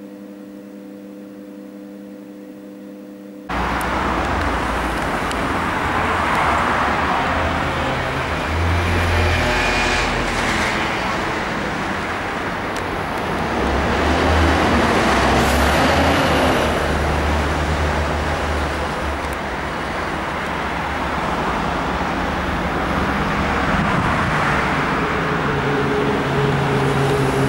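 Jet noise of a DHL Airbus A300B4-622R freighter passing overhead: a loud, steady rush over a deep rumble that swells and eases. It starts abruptly about three and a half seconds in, after a quieter steady hum.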